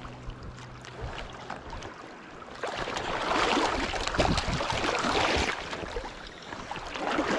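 A hooked brown trout, about 17 inches, thrashing and splashing at the surface as a landing net is dipped into the water to scoop it up, over the steady rush of a shallow river. The splashing starts a little under three seconds in and eases off about three seconds later.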